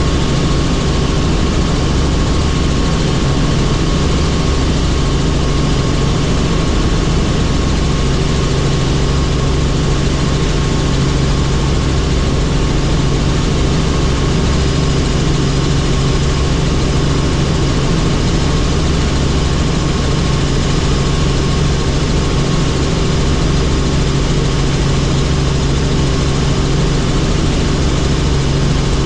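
Helicopter in flight: steady turbine and rotor noise, a loud continuous drone with a low hum and a fainter high whine.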